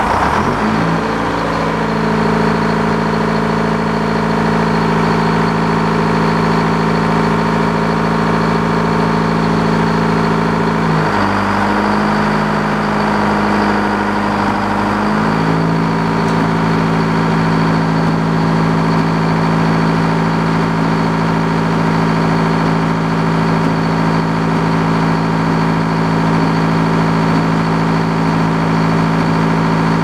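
Detroit Diesel two-stroke engine powering a circular sawmill, just started and running steadily as it spins up the saw blade. Its note shifts for a few seconds about 11 seconds in, then settles back, and a thin high whine runs over it.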